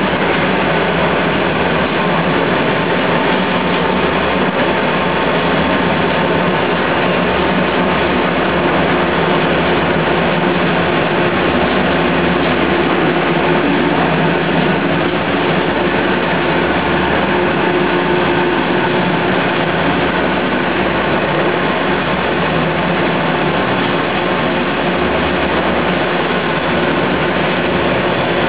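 Pet food production line running steadily: a constant mechanical noise with a few faint steady hum tones, from a multi-layer mesh-belt conveyor dryer in operation.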